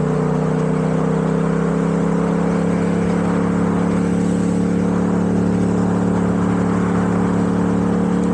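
2022 Yamaha MT-07's 689 cc CP2 parallel-twin, on a stock exhaust with a small mod, running under way at a steady cruising speed, its note creeping slightly higher, over wind rush on the helmet microphone.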